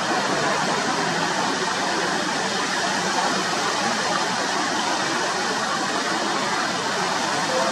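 Water jets of a fountain spraying and splashing, a steady rushing hiss of water.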